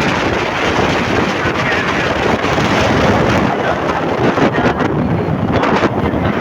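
Wind buffeting the microphone, a steady, loud rumbling hiss.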